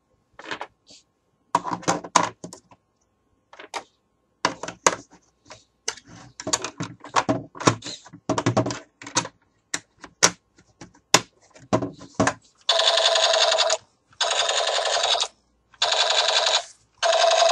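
Irregular plastic clicks and knocks from a battery-powered plastic toy MP5SD submachine gun being handled. Then, from about two-thirds of the way in, its electronic firing sound: four buzzing bursts of about a second each, the last still going at the end.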